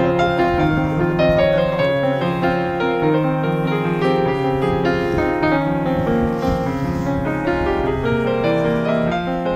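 Piano music, with notes held and changing about once a second.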